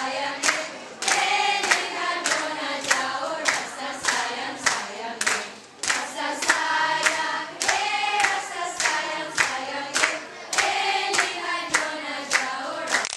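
A group of girls singing a song together, clapping their hands in a steady beat along with it.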